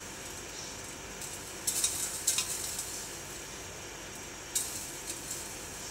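Steady low hiss with short crackling rustles of hands handling toppings: once around two seconds in, and again after four seconds, as capsicum strips are picked up and laid on an unbaked pizza.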